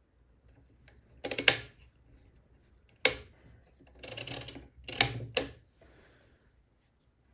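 Odhner arithmometer, a Model 8 pinwheel calculator, having its main and counter registers cleared to zero by hand. There are two short bursts of rapid metallic ratcheting from the register wheels, and sharp clicks after each.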